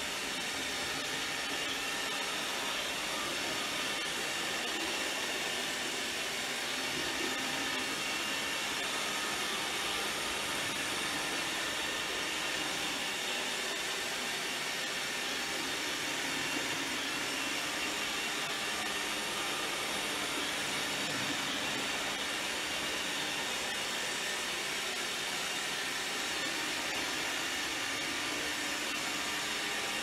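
iRobot Roomba 605 robot vacuum running steadily in Spot cleaning mode on a hard floor: an even rushing noise from its vacuum fan and brushes, with several steady high whines on top.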